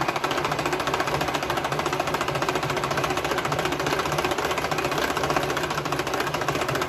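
Tupperware Whip-N Mix hand-cranked whisk turned fast, its gears and beaters making a loud, fast, even rattle as it whips a milk and egg custard mix.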